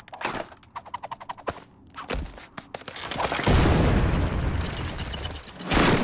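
Cartoon sound effects: a fast rattling clatter of clicks, a few thuds, then a loud low rushing rumble and a short burst near the end, for a character's fall and crash into deep snow.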